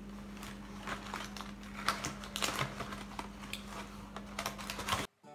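Irregular light clicks and paper rustles of oatmeal packets being handled and sorted, over a steady low hum. The sound cuts off suddenly near the end.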